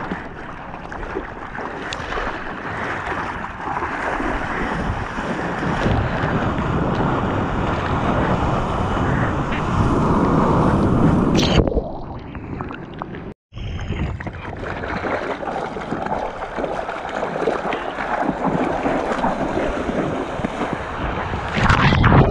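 Seawater splashing and sloshing close around a GoPro, with wind on the microphone. A little before twelve seconds in the sound suddenly goes muffled as breaking whitewash washes over the camera, cuts out for an instant, then the sloshing returns and grows louder near the end as the camera goes underwater.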